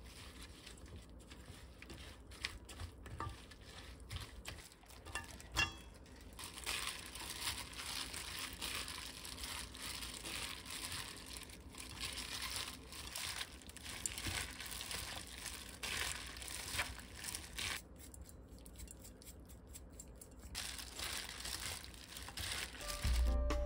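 Gloved hands tossing sweet potato stems in wet chili seasoning in a stainless steel bowl: the plastic gloves crinkle, and the coated stems squish. A few light taps of a silicone spatula on the bowl come first, and the mixing sound pauses briefly near the end.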